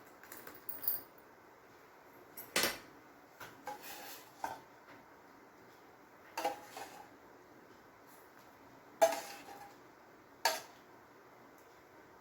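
A utensil clinks and knocks against a pot and a serving bowl as soup is served out. The clinks come irregularly every second or two with a little ringing, and the loudest is about nine seconds in.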